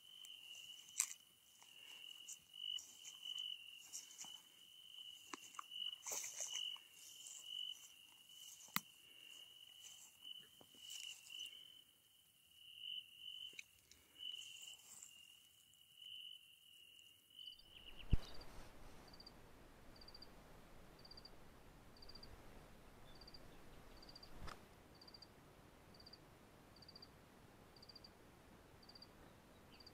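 Footsteps swishing and crunching through tall grass under an insect's steady high trill, which stops about two-thirds of the way through. After a sharp click comes a steady hiss, with a faint high chirp repeating roughly every two-thirds of a second.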